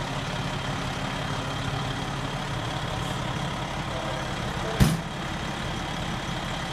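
Diesel engine of a 2003 Pierce Dash 100-foot aerial ladder truck idling steadily. About five seconds in, one loud slam as the cab door shuts.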